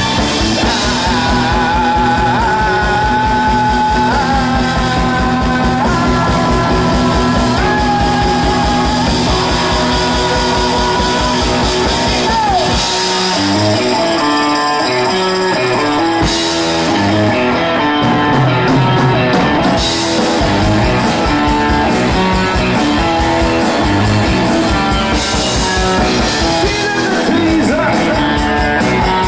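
Rock and roll song with a singer, guitar and a steady beat. The beat drops out for a few seconds about halfway through, then comes back.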